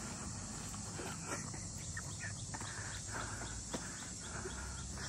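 Outdoor ambience of steady insect chirring, with scattered light scuffs and clicks close by.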